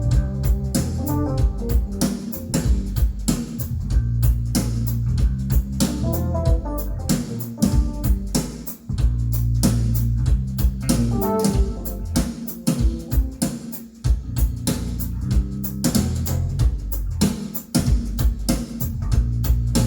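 Recorded band music without vocals: guitar over bass guitar and a drum kit keeping a steady beat.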